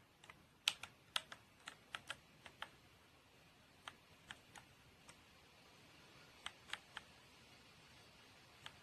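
Keys of a TMKB T68 60% mechanical keyboard being pressed in irregular clicks: a quick flurry at first, then scattered single presses and a short group of three.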